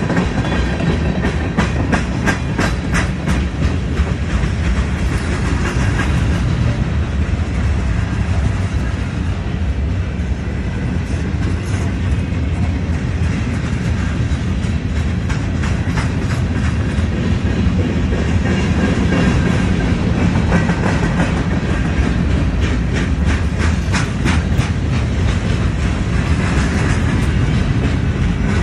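Freight train of tank cars, flatcars and boxcars rolling past close by: a steady rumble of steel wheels on rail, broken by recurring runs of clicking as the wheel sets cross rail joints.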